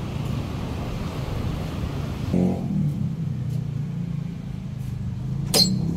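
A motor vehicle's engine running steadily, with a short pitched sound about two and a half seconds in and a sharp click near the end.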